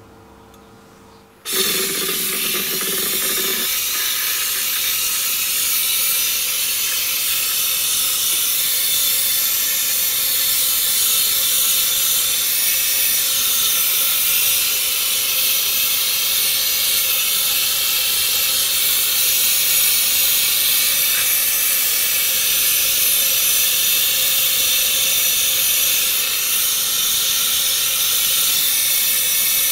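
Powder-coating gun spraying: a steady, loud hiss of compressed air carrying the powder. It starts abruptly about a second and a half in.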